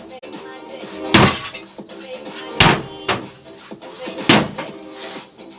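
Background music with a heavy thud about every second and a half: sledgehammer blows.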